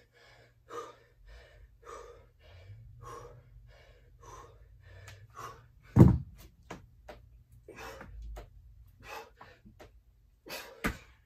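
A man panting hard at about two breaths a second mid-burpee set, with a sharp thud about six seconds in as a pair of 25 lb hex dumbbells are set down on the floor, and another knock near the end.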